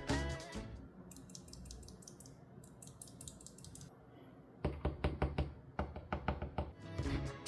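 Clicks and taps from a YUNZII L75 low-profile mechanical keyboard: faint light clicks at first, then a run of louder, quick taps from a little past halfway.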